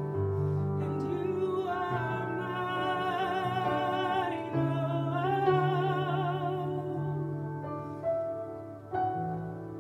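A woman singing a slow worship song, holding two long notes with wide vibrato over sustained electronic keyboard chords. The voice drops away near the end while the keyboard carries on.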